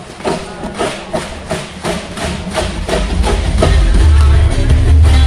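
Rhythmic knocking of bottles in time, about four knocks a second, then loud music with a heavy bass beat comes in about three seconds in.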